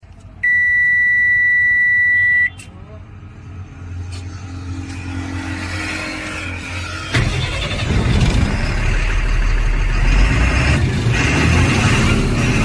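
A steady electronic beep for about two seconds, then a Tata Signa BS6 truck's diesel engine is cranked by its repaired starter motor and starts about seven seconds in, running on loudly.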